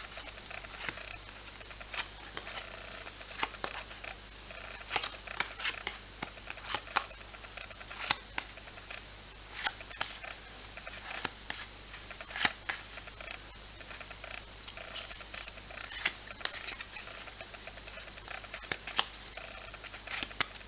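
Trading cards being handled and flicked through one by one: many short, irregular clicks and rustles of card sliding against card.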